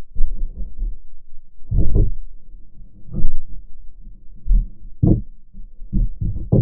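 Designed sci-fi underwater sound effect: muffled, deep thuds and rumbles at uneven intervals, with no high sounds at all, several coming in quick succession near the end.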